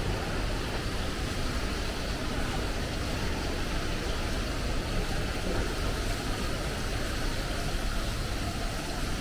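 Steady indoor background noise of a shopping mall: a low, even rumble and hum with no distinct events.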